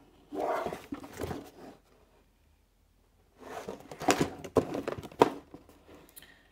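A cardboard plastic-model kit box being handled and turned over, its sides rubbing and scraping against the hands in two bouts, the second with a few sharp knocks.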